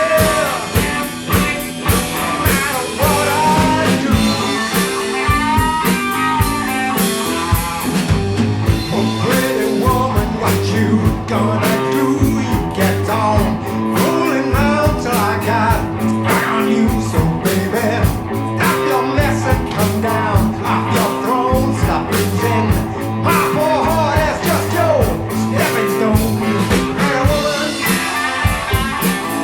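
Blues-rock band playing a song: electric guitar with bent notes over bass and a steady drum-kit beat.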